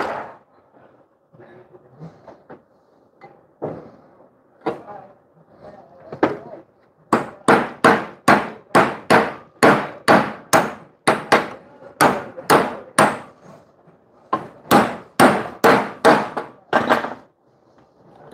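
Hammer striking a bus door hinge clamped in a steel bench vise, metal on metal. A few separate knocks, then a quick run of hard blows, two to three a second, broken by a short pause about thirteen seconds in.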